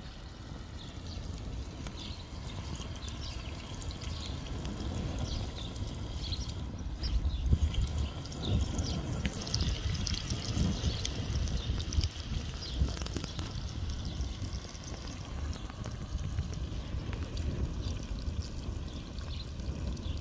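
Sausages, ćevapi and potatoes sizzling in a tanjurača disc pan over a crackling wood fire: a steady hiss full of fine pops, busiest midway, over an uneven low rumble.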